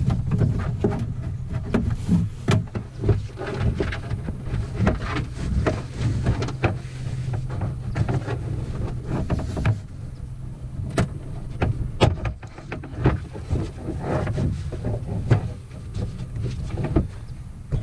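Handling noise from a kayak seat being taken apart by hand: plastic parts clicking and knocking and fabric rustling as plastic push rivets are pulled out of the seat base. A steady low hum runs underneath.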